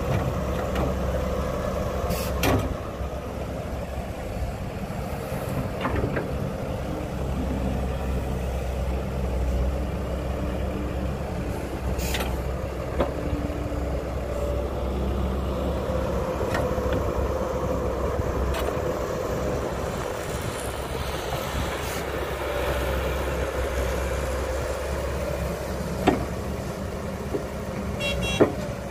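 Caterpillar 312B excavator's diesel engine running steadily under load as it digs and swings earth into a dump truck, with a few sharp knocks from the bucket and boom.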